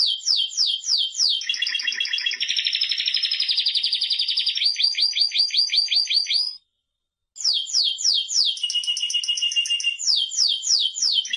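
Spanish Timbrado canary singing: a quick series of falling notes, then a long buzzy trill and a fast run of repeated notes. The song stops dead for under a second about six and a half seconds in, then resumes with more falling notes and another trill near the end.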